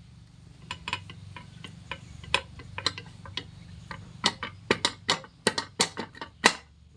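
Irregular sharp metal clicks and knocks from a Yamaha Jupiter crankshaft being fitted into its crankcase bearing, coming thicker and louder in the second half.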